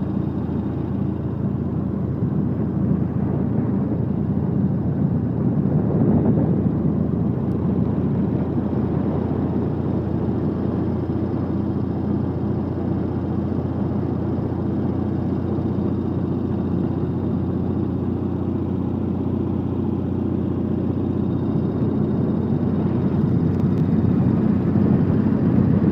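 Motorcycle engine running steadily while riding along a road, with a low, even drone, a little louder near the end.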